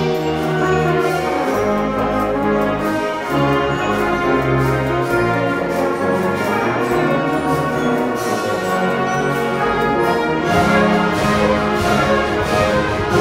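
A symphonic concert band of brass, woodwinds and percussion playing sustained full chords, with the brass prominent and percussion strokes throughout that grow busier near the end. The band is a virtual ensemble, each part recorded separately and mixed together.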